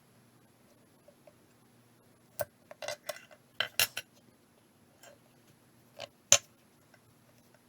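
Hand tools clinking and knocking against a wooden workpiece. There is a single knock about two and a half seconds in, then a quick run of clinks around three to four seconds, and two more knocks near six seconds, the last the loudest.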